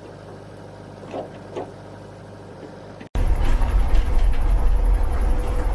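A low hum with a couple of faint short sounds, then, after an abrupt cut about three seconds in, a much louder steady rumble of a motor or engine running.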